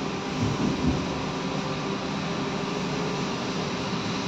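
Cabin noise of a BKM 321 trolleybus under way: a steady hum with several constant tones from the electric drive over road noise, with two low bumps about a second in.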